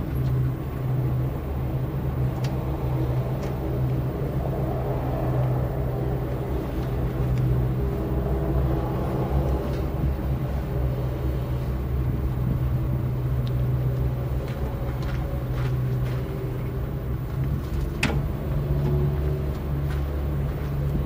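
Terex TXC225LC excavator's diesel engine running steadily at a low, even hum, with a few faint clicks.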